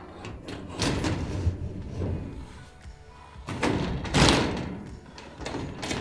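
Metal ceiling panel and black hold-down channel being pushed up into the steel suspension grid: two bursts of metal knocking and scraping, about a second in and around four seconds in, with another starting near the end. Background music plays underneath.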